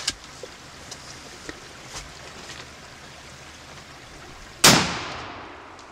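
Single-shot H&R 12-gauge shotgun firing once, about two-thirds of the way in. It fires a black-powder load of BBs sealed with tallow, from a brass shell primed with a 209 primer. The report is loud and sudden and fades away over about a second, after a few faint ticks.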